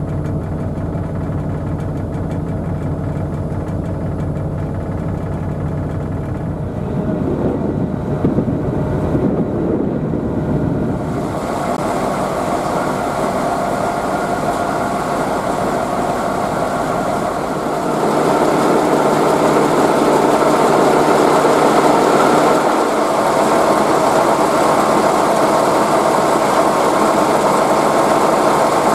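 2M62U diesel locomotive's two-stroke V12 diesel engine idling steadily. It grows louder and noisier about eleven seconds in, heard from inside the engine compartment, and louder again past the middle.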